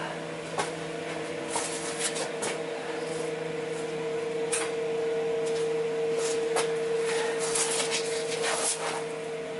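Steady electric hum, like a small fan motor running, with a few light clicks and metal clinks of tools scattered through it.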